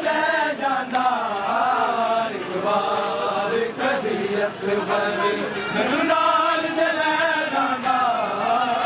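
Men's voices chanting a Punjabi noha lament in unison, with sharp chest-beating slaps of matam landing roughly once a second.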